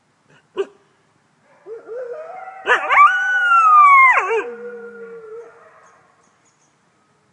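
A wolf howling: a short yelp, then a long howl that leaps up in pitch, holds and slowly slides down over a lower steady voice, before dropping to a low tail and fading.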